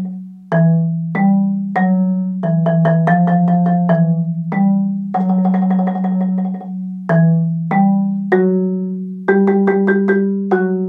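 Marimba played with mallets: a four-note melody in a syncopated rhythm, mixing single struck notes with dense rapid runs of strokes, and quicker repeated strokes in the last couple of seconds.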